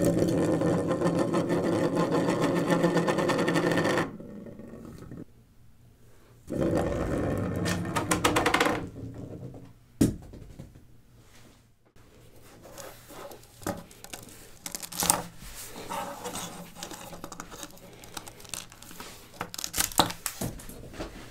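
Small wheels built from LEGO plates set spinning on edge on a hard tabletop: a loud, fast plastic rattle for about four seconds, then again for about two seconds. A single sharp click comes about ten seconds in, followed by scattered light plastic clicks and taps.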